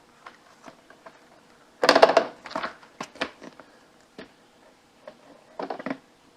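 Plastic clicks and clattering as an accordion folding door's slides are worked one by one into its overhead track. A loud clatter comes about two seconds in, then scattered single clicks and a short rattle near the end.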